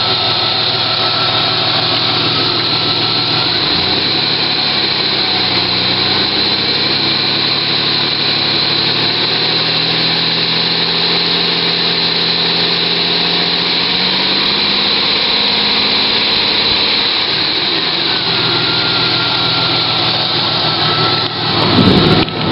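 The 1994 Chevy S-10 Blazer's 4.3-litre V6 idling steadily with a high steady whine on top, the engine warming up while the new coolant temperature sensor is not yet reading on the dash.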